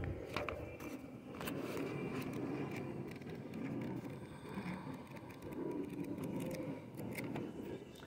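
Street ambience: a steady low rumble of distant traffic, with a few brief clicks and rustles.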